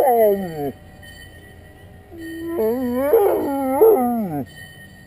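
Dalmatian howling: a howl that trails off in falling pitch just after the start, then, about two seconds in, a second howl of about two seconds whose pitch wavers up and down and drops away at the end.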